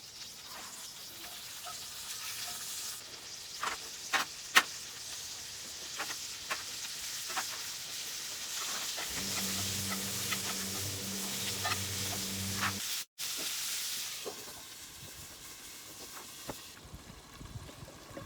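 Steaks sizzling and frying in a hot pan on a gas camp stove, with scattered sharp clicks and taps of utensils against the pan. A low steady hum joins for a few seconds in the middle, and the sound cuts out for an instant just after it.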